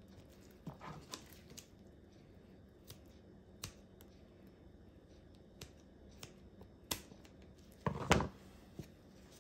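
Kitchen shears snipping at the knuckle end of a raw chicken drumstick: scattered small clicks of the blades, with the loudest cluster of cuts about eight seconds in.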